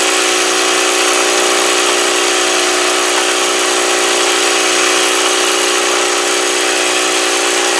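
Small electric motor of a Playmates Fun-To-Drive toy dashboard running steadily, turning the toy's road track, a steady whir with hiss that cuts off abruptly at the end.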